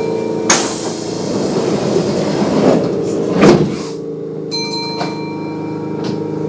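Doors of a Kintetsu 9200 series train closing: a rush of air and sliding that builds to a loud thud as they shut about three and a half seconds in, over the car's steady electrical hum. A chime sounds, stopping about half a second in and sounding again briefly about four and a half seconds in.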